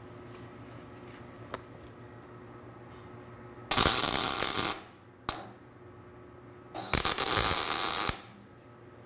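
MIG welder tack-welding steel braces: two bursts of welding arc crackle, each about a second long, with a very short arc blip between them.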